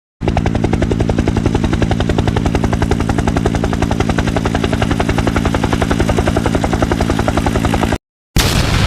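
A helicopter sound effect: a steady, rapid rotor chop over a low hum, which cuts off suddenly about eight seconds in. After a brief gap, an explosion sound effect begins near the end.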